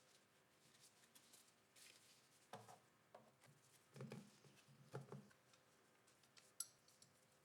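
Near silence: room tone with a few faint soft knocks and one faint sharp click near the end.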